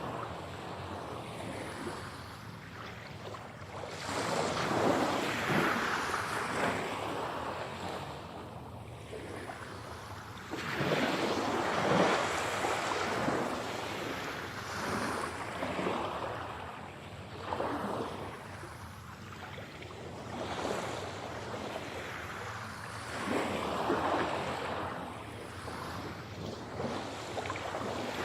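Ocean waves breaking and washing in, rushing surges that swell and ebb every few seconds, the biggest about twelve seconds in.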